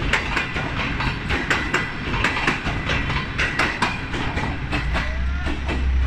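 Passenger train coaches rolling past close by: the wheels clatter over the rail joints in quick, irregular clicks. A low steady hum comes in near the end.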